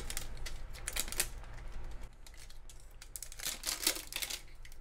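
Plastic shrink wrap crinkling and crackling in irregular bursts as it is peeled by hand off a titanium kettle, busiest near the end.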